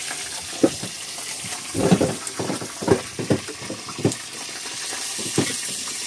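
Steady hiss of sea water around a small fishing boat, with irregular knocks and thuds on board.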